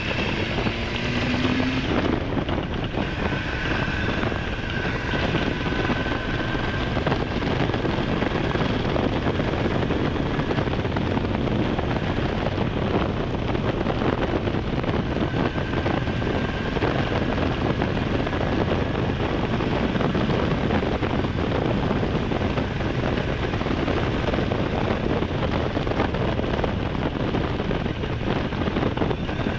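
Honda Hornet 900's inline-four engine running steadily while the motorcycle is ridden, mixed with constant wind noise over the microphone.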